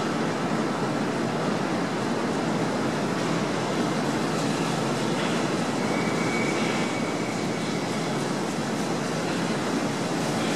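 NSW C36-class steam locomotive 3642 rolling slowly past with its carriages: a steady rushing noise of the engine and wheels on the rails, with a faint thin high squeal for a couple of seconds about six seconds in.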